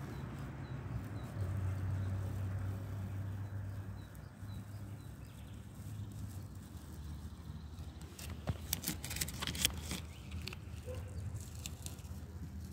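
Masking tape being pulled off freshly spray-painted car bodywork: a short crackly ripping lasting a second or two, about two-thirds of the way through, over a low steady hum.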